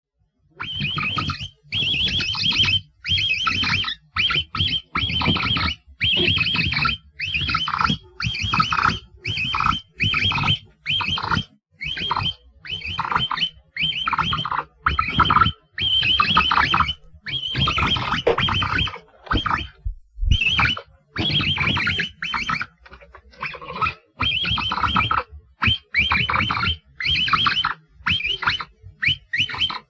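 Capybara giving a long series of short, high, squeaky calls, about one a second, each under a second long with brief gaps between.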